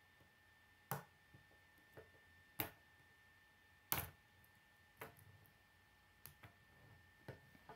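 K'nex plastic rods and connectors clicking and snapping together as they are fitted by hand: about six sharp clicks a second or so apart, the loudest about four seconds in, with a few fainter ticks between.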